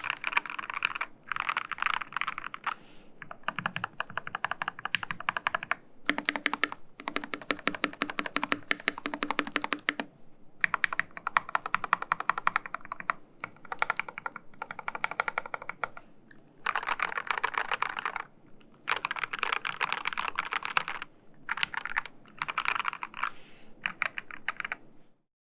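Fast typing on a Dark Project KD83a mechanical keyboard with factory-lubed Dark Project g3ms Sapphire linear switches in a steel plate and CSA PBT keycaps: dense runs of key clacks in bursts of a few seconds with short pauses between them. The typing stops abruptly near the end.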